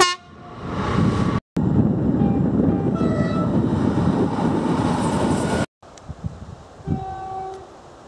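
Edited run of British diesel trains with cuts between clips. A horn blast is cut off at the start, a diesel freight locomotive approaches, and a South Western Railway diesel multiple unit passes close by with loud rail and engine noise and short horn notes. Near the end a fainter single horn note sounds from another train.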